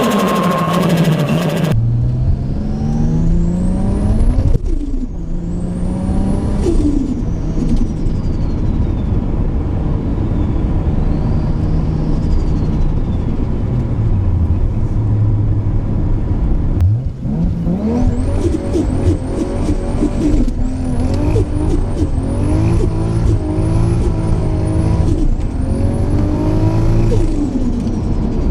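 Turbocharged car engine revved again and again, each rev carrying a high turbo spool whistle that climbs and then falls away as the throttle lifts. Near the end come quick short revs, one after another, each with its own spool whistle.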